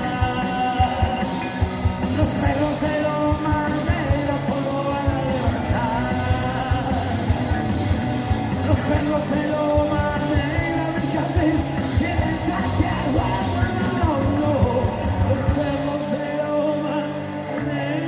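Live rock band playing a song: sung lead vocals over electric guitars and a drum kit. The drums fall away near the end.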